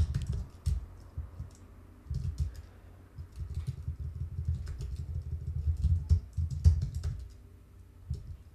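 Typing on a computer keyboard: irregular bursts of keystrokes with short pauses between them, each key a click with a low thud.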